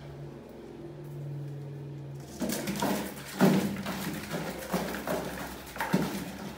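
A rat tips a cardboard trapdoor lid and drops into a plastic bucket, then knocks and scrabbles against the bucket's plastic. The clatter starts about two and a half seconds in, with its loudest knock a second later and another near the end.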